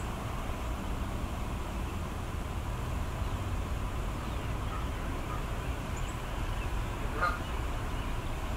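Outdoor ambience: a steady low rumble, with one short bird call about seven seconds in and a few faint high chirps.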